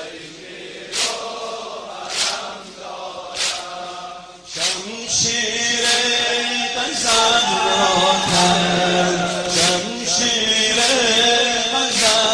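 A Muharram mourning chant: a lead voice sings a lament, and about four and a half seconds in, a group of voices joins in. A sharp beat falls about every 1.2 seconds, in time with the chant.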